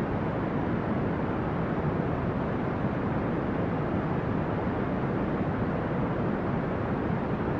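Brown noise: a steady, deep rushing hiss, heaviest in the low end and fading toward the highs, with no change in level.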